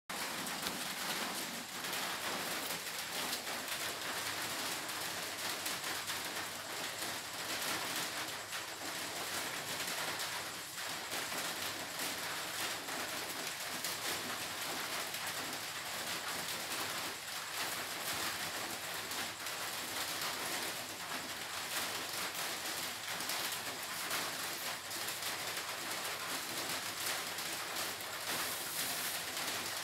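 Steady rain: an even hiss that keeps up without a break.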